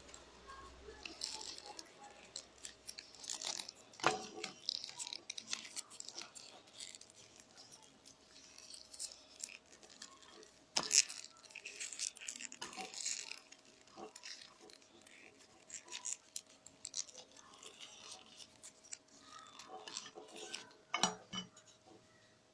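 Rolled newspaper tubes and a woven paper petal rustling and crinkling in the hands as they are worked, with scattered small clicks and taps and one sharper click about halfway through.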